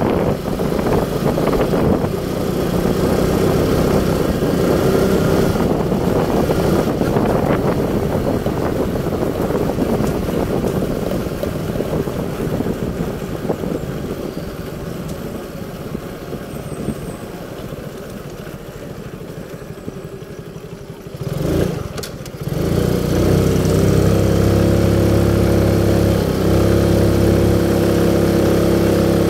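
Motor vehicle engine and travel noise while riding along, rumbling and fading a little over the first twenty seconds. Just past twenty seconds a brief louder sound breaks in, and then the engine idles steadily at one even pitch.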